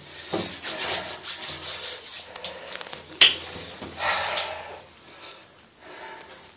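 A copper water pipe being scrubbed by hand to clean up a freshly soldered joint, with quick back-and-forth rubbing strokes for the first couple of seconds. There is a sharp click about three seconds in, and a short burst of rubbing about a second after that.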